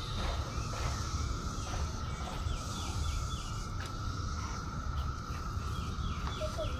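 Cicadas droning steadily in chorus, with a bird singing two quick runs of repeated notes over them, and a low rumble underneath.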